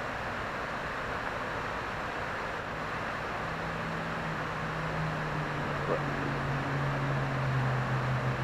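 Steady rush of water from the dam's spillway and rapids. About three seconds in, a passing vehicle's low engine drone comes in and grows louder, its pitch sinking slightly.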